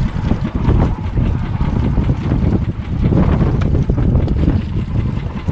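Wind buffeting the microphone on a small boat at sea, a loud uneven low rumble mixed with water noise, with a few light knocks.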